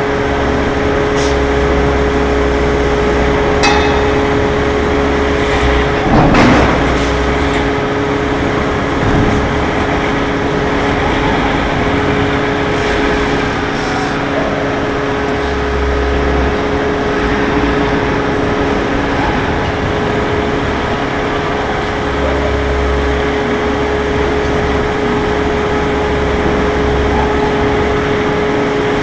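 Heavy hot forming press and its hydraulics running steadily: a constant two-note machine whine over a deep rumble that comes and goes. A few metallic clanks, the loudest about six seconds in.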